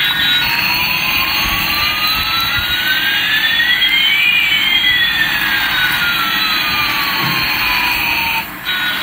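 Jet engine sound effect: a steady hiss with one whine rising in pitch and another falling, crossing about halfway through, cutting off suddenly near the end.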